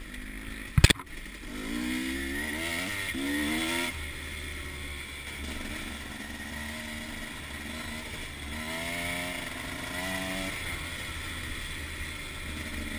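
Dirt bike engine running on the move, revving up with rising pitch a couple of seconds in and again around nine seconds in, over a steady low rumble. A single sharp knock just under a second in.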